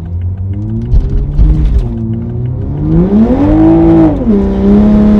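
A 2020 Toyota Supra's engine running loud with no exhaust fitted, revving up under acceleration. The pitch climbs, drops sharply about four seconds in, then holds and creeps up again.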